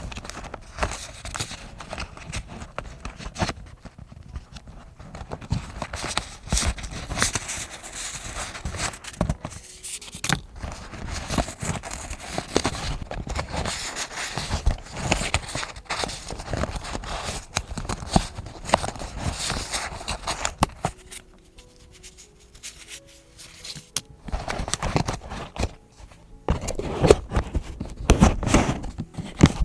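Close-up handling of paper and stationery for vintage journaling: rustling, scraping, tearing and sharp taps and clicks, with a quieter stretch about two-thirds of the way through.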